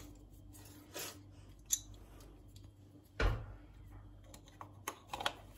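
Screwdriver and plastic wall-socket parts being handled while the socket's mounting screws are tightened: scattered small clicks and scrapes, with one louder knock about three seconds in.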